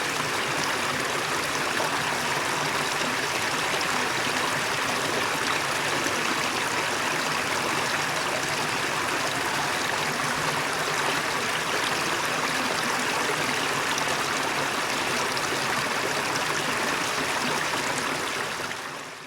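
Waterfall: steady rushing of falling water, fading out near the end.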